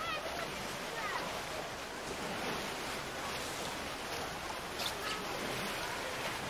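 Rushing, churning water of a river rapids ride around a circular raft, a steady rush.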